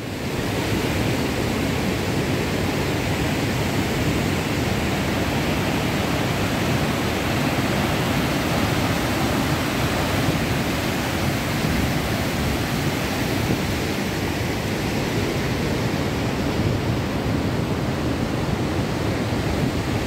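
Turbulent, muddy floodwater rushing over rock ledges in rapids and cascades: a steady, even rush of water.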